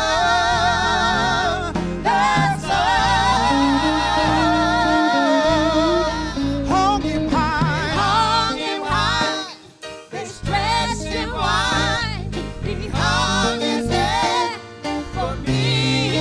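Gospel singing with band accompaniment: voices holding long, wavering notes over low bass and keys, with a brief dip in the music about halfway through.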